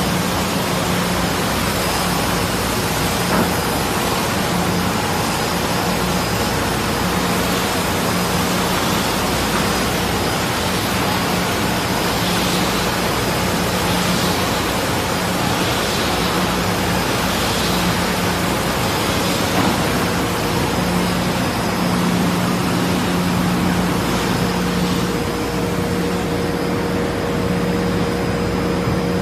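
Automatic door sanding machine running, its rotating heads of abrasive sanding strips working over a wooden door panel: a steady even hiss over a motor hum that drops in and out.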